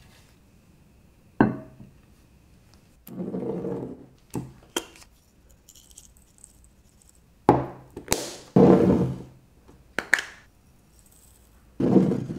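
Spice jars being handled: plastic flip-top caps clicking open and shut, and dried herbs shaken out into a small ceramic bowl in several short rattling bursts. A single sharp tap comes about a second and a half in.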